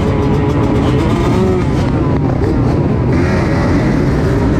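KTM SX-F 250 four-stroke single-cylinder motocross engine revving hard, heard onboard, its pitch rising and falling as the throttle opens and closes.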